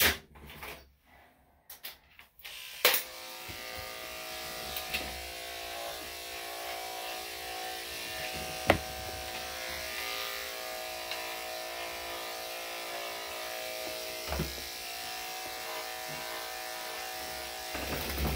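Electric dog-grooming clippers switched on just under three seconds in, then running with a steady hum as they clip the dog's coat. A single sharp click partway through.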